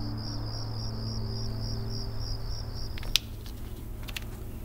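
Cricket chirping in a steady rapid pulse, about four chirps a second, over a low steady hum. About three seconds in the chirping stops and a few sharp clicks follow: a pair of walnuts knocking together as they are rolled in a hand.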